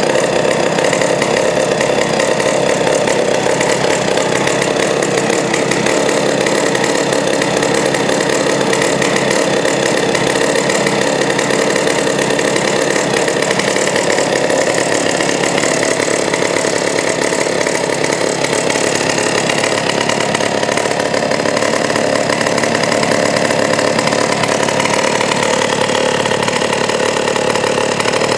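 McCulloch Model 73 120 cc two-stroke gear-drive chainsaw running steadily at an even engine speed.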